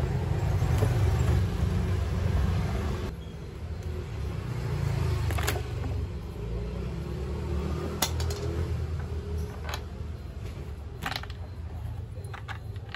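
Screwdriver and plastic car-door armrest being worked loose: a few sharp plastic clicks and knocks over a low background rumble.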